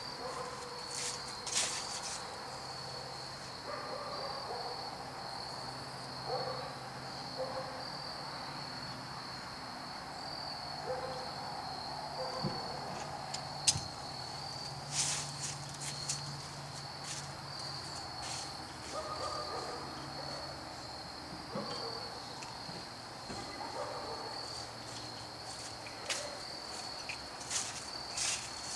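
Crickets chirping in a steady, pulsing high trill, with a few sharp clicks and knocks scattered through it.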